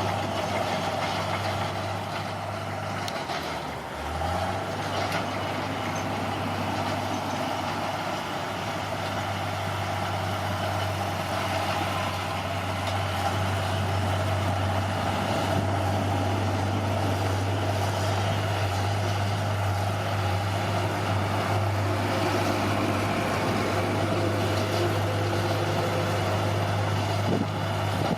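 Bulldozer's diesel engine running steadily, its low drone dipping briefly about four seconds in before picking back up.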